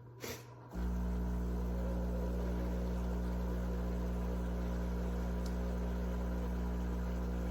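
Cuisinart single-serve coffee maker starting a brew cycle: a short click, then under a second in its pump starts abruptly with a loud, steady hum.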